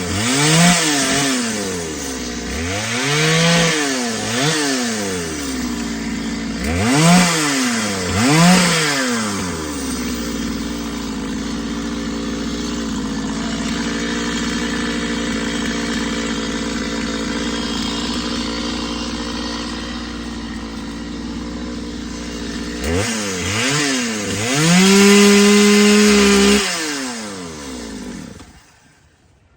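Gasoline chainsaw engine blipped up and down in quick revs, then idling steadily for a long stretch. Near the end it is held at high revs for about two seconds, drops back, and is shut off.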